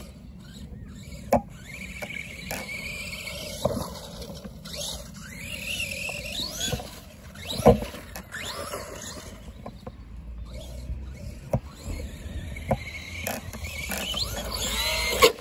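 Arrma Big Rock RC monster truck, converted from a Senton, driving over grass: its electric motor and drivetrain whine rises and falls in pitch with the throttle. Several sharp knocks come as the truck bounces and lands, the loudest about halfway through.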